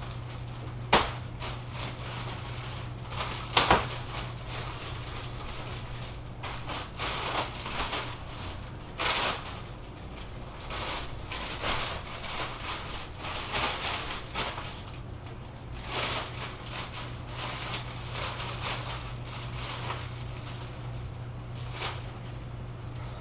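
Rustling and handling of boat packaging and parts, with a few sharp clicks or knocks (about a second in, near four seconds, and near nine seconds), over a steady low hum.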